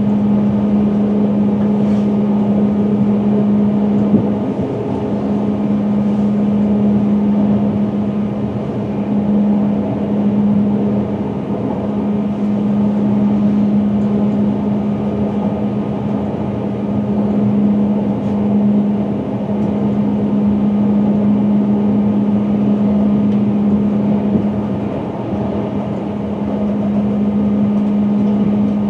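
Cab noise of a Class 350 Desiro electric multiple unit running at speed: an even rumble with a steady low hum and a brief knock about four seconds in. There is no regular clickety-clack, because the train is on continuous welded rail.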